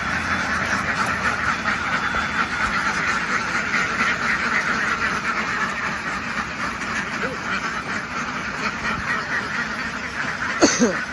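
A large flock of ducks quacking all at once in a dense, continuous din, with one brief louder call near the end.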